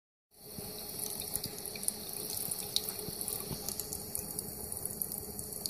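Tap water running in a thin stream onto a wet hand and into the sink, a steady hiss with small splashes, starting a moment in.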